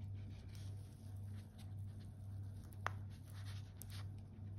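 Faint handling sounds of a stainless steel chronograph watch on its cushion: light rubbing and small clicks from fingers on the case and bracelet, with one sharp click about three seconds in. A steady low hum lies under it.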